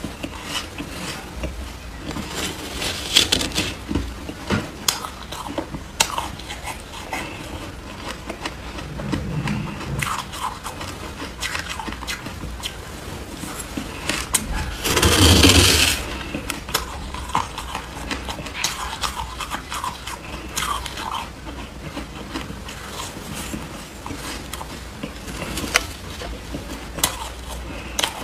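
Soft crunching and chewing of fluffy shaved ice, with a metal spoon scraping and digging into the ice mound. One louder scrape lasts about a second around the middle.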